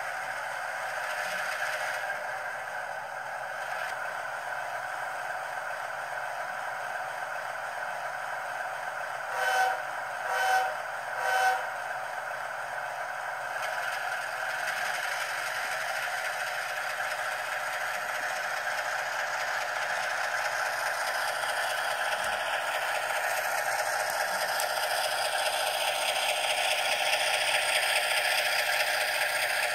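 HO-scale Bachmann GE ES44AC diesel locomotive's DCC sound decoder playing a running diesel engine through its small onboard speaker, thin and without low bass. Three short horn blasts come about ten seconds in. In the last several seconds it grows louder as the model rolls close, with wheels clattering on the track.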